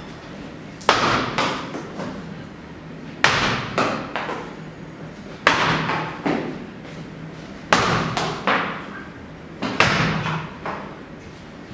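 A small ball thrown hard against a wall about every two seconds: five sharp smacks, each followed by one or two quieter knocks as the ball bounces off the floor.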